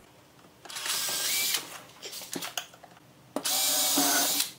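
Cordless Makita drill/driver running in two short bursts, about a second each, drilling 1/16-inch pilot holes into a golf cart speaker pod, with a motor whine that rises a little; a few light clicks come between the bursts.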